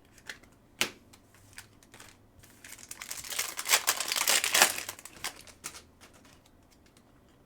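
Trading-card pack wrapper crinkling and being torn open, about three seconds in, after a few light clicks of cards being handled.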